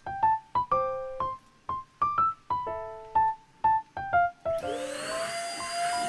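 Background piano music plays note by note. About four and a half seconds in, a corded handheld vacuum cleaner switches on: its motor whine rises as it spins up, then runs steadily under the music.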